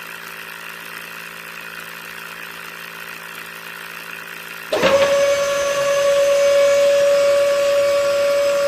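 A small electric motor runs with a steady hum. A little past halfway it abruptly gives way to a louder, steady high-pitched whine.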